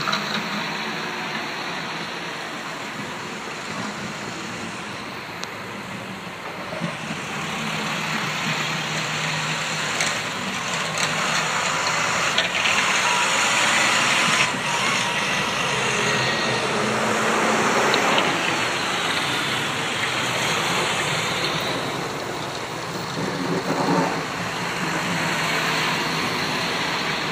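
A fleet of snowplow trucks coming down the road while plowing: a heavy truck engine and road noise that grows louder as the plows draw near, loudest about halfway through, then eases a little.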